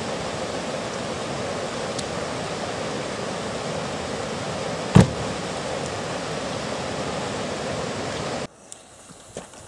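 A steady rushing noise, like running water or wind, with one sharp bang about halfway through. The rushing cuts off abruptly near the end, leaving only faint knocks.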